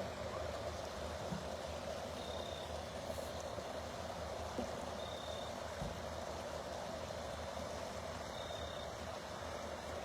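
Steady rush of creek water flowing below a railway trestle, with a faint short high chirp about every three seconds.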